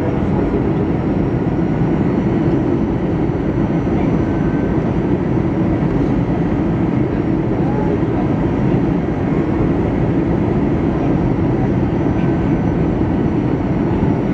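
Steady, loud rumble inside an Airbus A320's passenger cabin: the jet's engines and rushing air, heard from a seat.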